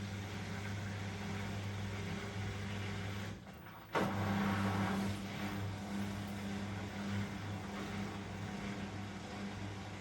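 Elin washing machine running with a steady electric hum; about three seconds in the hum drops out briefly, then comes back with a sharp click.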